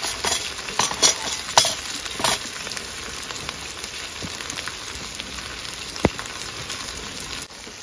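Salmon and asparagus tips sizzling in a frying pan on a Jetboil gas stove: a steady hiss with sharp crackles in the first couple of seconds and a single sharp click about six seconds in.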